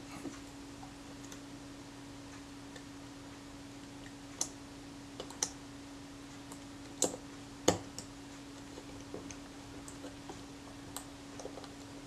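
Scattered small clicks and taps as parts of a Kodak Retina IIIc's rangefinder are handled and seated on the camera's top plate, the two sharpest a little past the middle, over a steady low hum.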